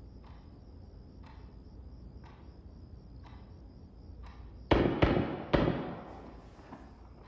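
A clock ticking faintly about once a second, then about two-thirds of the way through, three loud heavy bangs in quick succession, each dying away with a long echoing decay.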